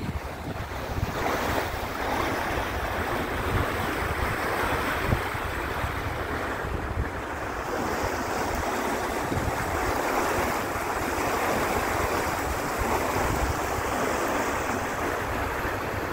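Steady rushing noise of wind on the microphone, with gusty low buffeting throughout.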